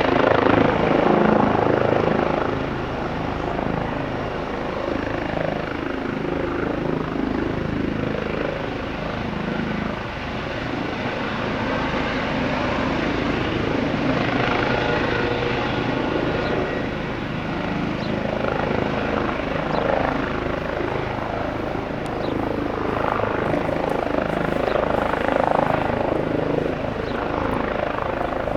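Eurocopter EC135 twin-engine helicopter running steadily, its rotor and turbine noise holding at an even level after being a little louder in the first couple of seconds.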